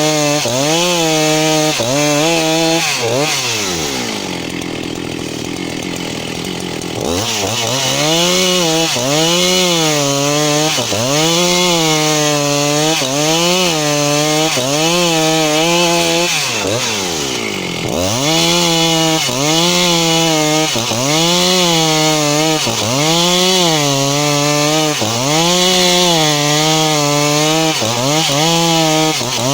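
A 272 two-stroke chainsaw ripping lengthwise through a log to cut boards. The engine pitch rises and falls about once a second as the bar is worked through the cut. It drops to a lower note for a few seconds about four seconds in, and again briefly around seventeen seconds, before climbing back to full revs.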